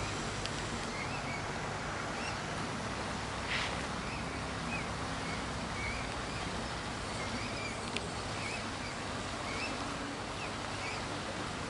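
Mute swan cygnets peeping as they walk: short chirping calls, roughly two a second, over a steady background hiss.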